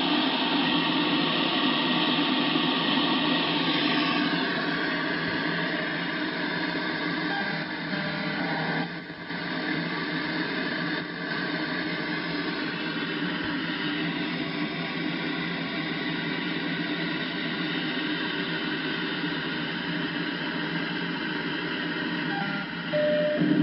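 Interference on the 2 m amateur band heard through a radio receiver's speaker in AM mode: a steady, dense noise with a strong low band, dipping briefly about nine seconds in. The uploader finds it occurs only when two signals around 145.1 MHz transmit together, and it makes weak stations and local repeaters unworkable.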